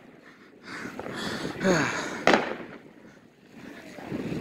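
Fireworks going off: a single sharp bang a little past halfway, after fainter pops and crackling.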